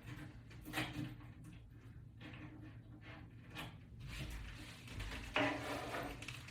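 Faint knocks, clicks and rustles of equipment being handled, low in level, with a brief faint tonal sound near the end.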